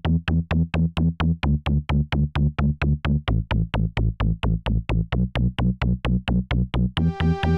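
Electronic background music: a fast, steady drum-machine beat of about five hits a second over a bass line, with held synthesizer notes coming in near the end.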